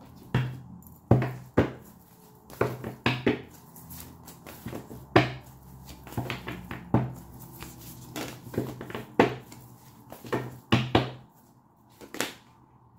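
A deck of oracle cards being shuffled by hand, with about a dozen irregular sharp slaps and knocks as the cards are riffled and tapped against the table.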